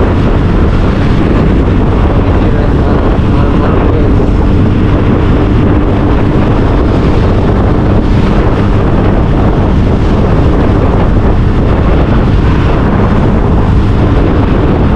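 Steady wind buffeting the microphone on a moving motorcycle, with engine and road noise running underneath.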